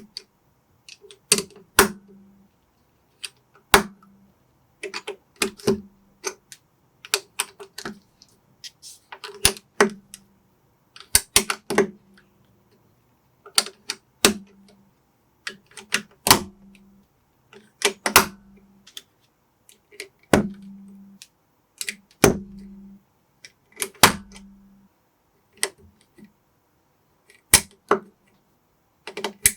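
Plastic building bricks clicking and snapping together as a Lego-compatible set is assembled: irregular sharp clicks, some single and some in quick clusters, every second or two.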